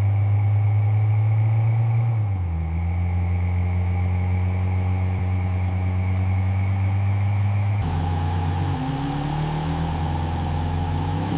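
1974 Dodge Monaco's 440 V8 idling steadily, with the note of the idle shifting slightly about two seconds in and again about eight seconds in.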